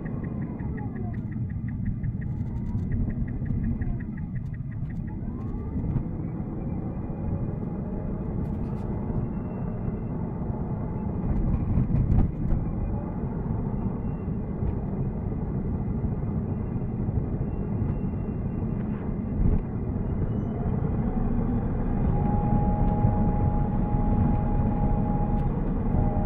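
Steady road and tyre noise inside a Tesla Cybertruck's cabin while it drives. A fast run of light ticks stops about five seconds in, and a steady tone rises in near the end.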